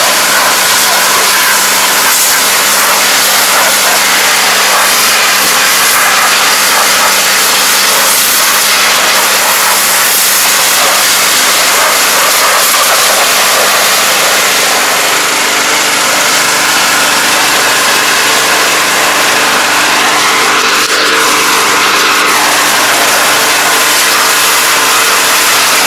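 High-pressure water jet hissing and spattering against a rice transplanter, over the steady hum of the pressure washer's motor.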